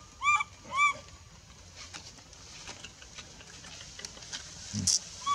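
Baby macaque crying in short high-pitched calls, each rising then falling. Two come in the first second and another at the very end, with faint rustling ticks and one brief rustle in between. The crying is the distress of an infant being refused milk by its mother.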